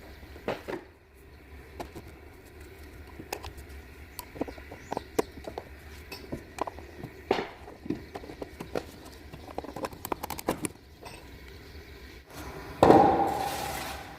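Hand tools and metal parts clinking and knocking during work on an engine, with scattered short knocks throughout. Near the end a sudden loud burst of noise that fades away over about a second.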